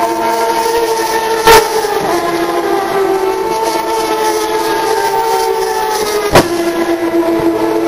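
Turismo Carretera race cars' engines running at high revs around the circuit, a steady high-pitched drone that drifts slowly in pitch. Two sharp bangs cut through it, about a second and a half in and about six seconds in.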